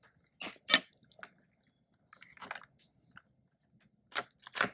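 Scattered short crinkles and clicks of small plastic packaging being handled and pulled open, louder once near the start and again near the end.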